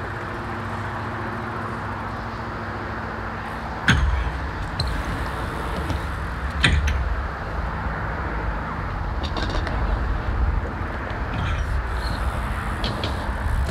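BMX bike riding a concrete skatepark bowl: a low rolling rumble from the tyres on the concrete, with two sharp knocks of the bike hitting the surface, about four seconds in and again nearly three seconds later.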